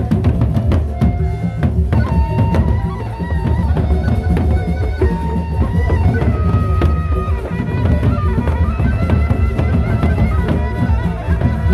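Gendang beleq ensemble playing live: large Sasak barrel drums beaten with sticks in a dense, driving rhythm, with cymbal strokes and held melodic notes above the drumming.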